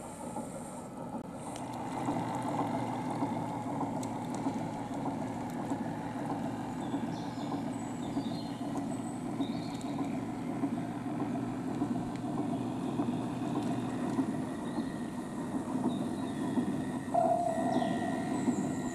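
Radio-controlled model work boat running across the water with a steady motor hum, a little louder about two seconds in. A steady single tone, like a horn, starts near the end.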